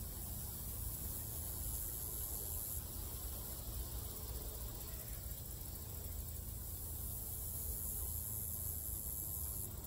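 Steady outdoor ambience: a high hiss that swells twice, over a low, unsteady rumble.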